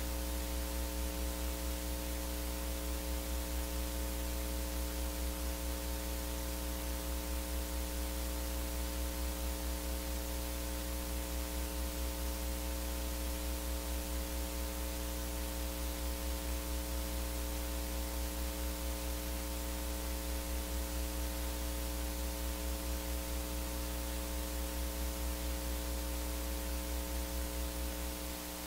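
Steady electrical mains hum and buzz over a layer of hiss: an open audio line with no voice or music on it. The level dips slightly near the end.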